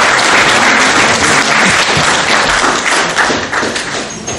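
Audience applauding, dying away over the last second.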